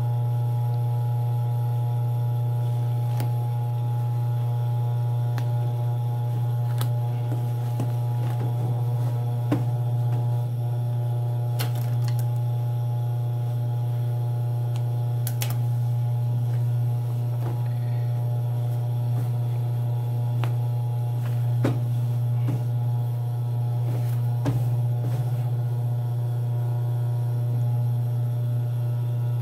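Steady low electrical hum, with a few scattered light clicks and taps from cloth and scissors being handled.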